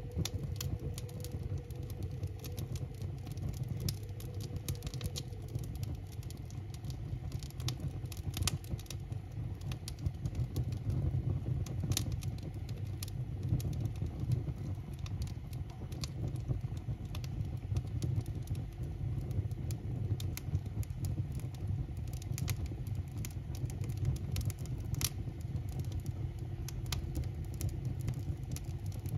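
Wood fire burning in a masonry baking oven (leivinuuni), crackling with many irregular small pops over a steady low rush of flame.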